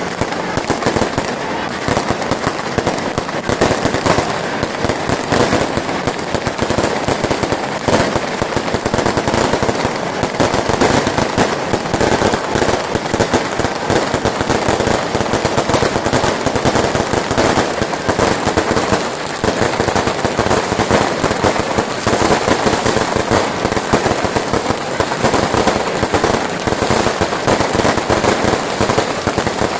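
A fireworks display: aerial shells bursting and firecrackers going off in a continuous, dense crackle of rapid pops and bangs that never lets up.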